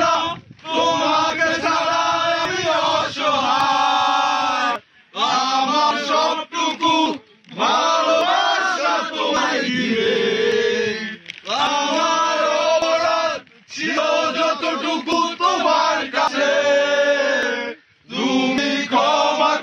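Men singing a song, with long held phrases broken by short pauses.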